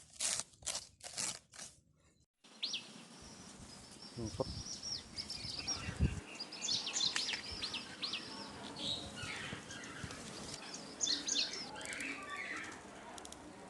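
Small birds chirping outdoors in many short, high, downward-sweeping calls over a steady background hiss, with a couple of dull low thumps. Just before, about five sharp knocks come in quick succession.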